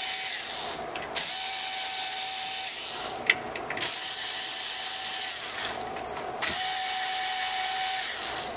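Cordless electric screwdriver running in short bursts of a second or two, with brief pauses between, as it backs out the screws holding a server's drive cage.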